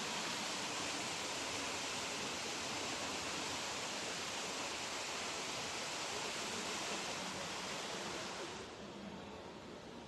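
Many vertical water fountain jets spraying up and splashing back into a shallow pool: a steady rush of falling water that dies down about a second and a half before the end as the jets shut off.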